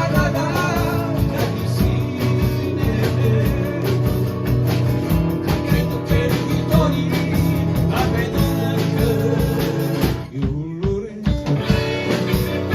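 Rock band playing live, with guitar and a steady drum beat. Near the end the band drops out for about a second, then comes back in.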